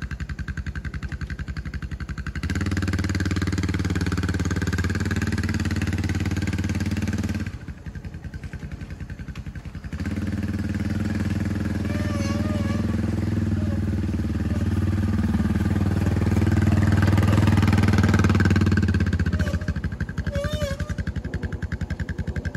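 ATV (four-wheeler) engine running: it idles, picks up about two and a half seconds in, eases back for a couple of seconds, then runs harder again. It is loudest shortly before it drops back toward idle near the end.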